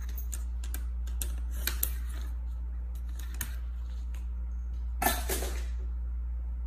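A cat's paws and claws tapping and scraping on a hard desktop as it scrambles off: several light clicks and knocks in the first two seconds, then a louder scuffing clatter about five seconds in. A steady low hum runs underneath.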